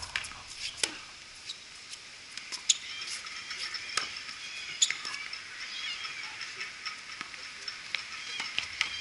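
Tennis ball being struck by rackets and bouncing on a hard court during a rally: sharp pops a second or two apart, two of them much louder than the rest. Small birds chirp in the background.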